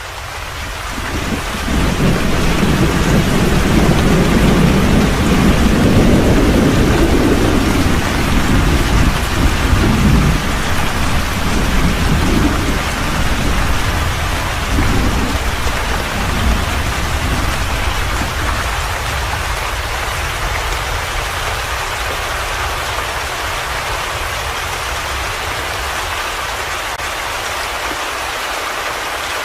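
Steady heavy rain, fading in over the first couple of seconds. A long roll of thunder rumbles under it through the first half, strongest early on and dying away about two-thirds of the way through, leaving the rain alone.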